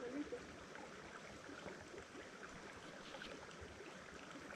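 Faint, steady outdoor background noise with scattered small ticks and chirps, and a brief faint sound right at the start; no distinct event.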